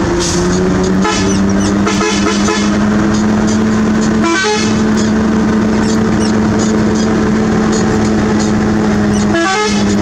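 Heavy vehicle engine running steadily with an even drone. Two brief rising tones cut in, about four seconds in and again near the end.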